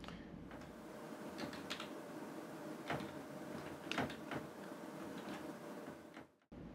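Computer keyboard keys pressed one at a time: a scattering of faint, separate clicks over a steady low hum. The sound drops out briefly near the end.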